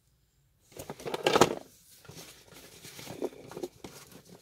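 Cardboard puzzle boxes being handled and rummaged out of a shipping box full of foam packing peanuts. There is one loud knock about a second and a half in, then light rustling and clicks.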